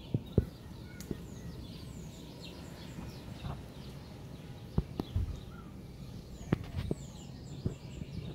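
Parrots chirping in many short, high, falling notes, with scattered sharp clicks and knocks.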